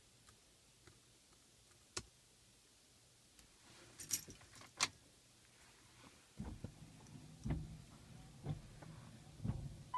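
A single click, then keys jingling briefly about four seconds in, followed by low thuds and rustling of someone moving about in the car.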